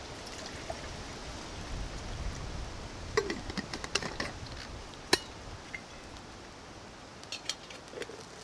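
Liquid poured from a vacuum flask into a stainless steel camping mug, followed by a run of metal clinks and clicks as the flask is handled; the sharpest click comes about five seconds in.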